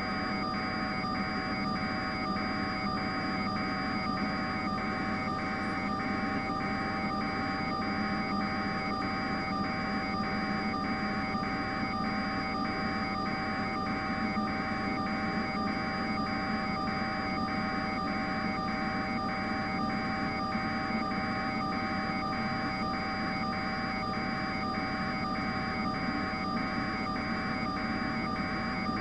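Steady hiss and hum with several constant tones and an even pulsing buzz a little over twice a second: the unnarrated raw audio of a news helicopter's aerial camera feed.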